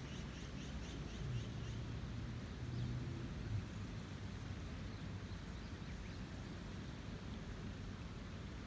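A river in spate running with a steady rush of water. A low hum sounds under it for the first three and a half seconds or so, and a bird chirps quickly for about a second and a half at the start.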